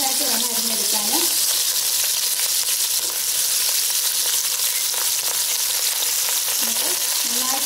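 Sliced onions frying in hot sunflower oil in a pan: a steady sizzling hiss as they start to sauté.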